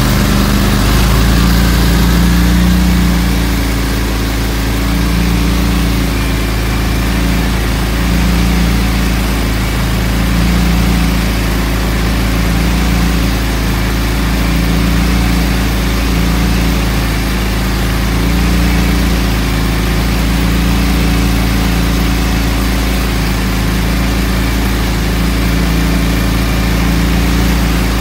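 Argo Frontier 600 6x6 amphibious ATV's engine running steadily from the driver's seat while it swims, its spinning tires churning the water into splashing spray. The engine note swells and eases slightly every few seconds.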